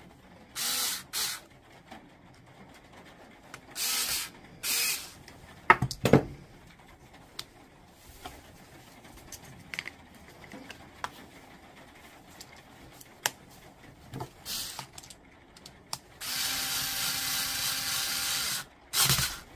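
Cordless drill-driver spinning in short bursts as it drives the screws of a UK three-pin mains plug, then one steadier run of about two and a half seconds near the end. Sharp clicks and knocks of the plug parts being handled, the loudest about six seconds in, with small ticks between.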